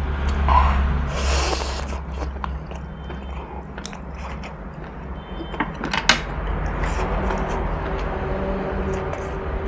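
Close-miked eating: a person chewing a mouthful of noodle soup and fatty pork, with sharp clicks of chopsticks and a metal spoon against a ceramic bowl, the loudest click about six seconds in. A low steady hum runs underneath.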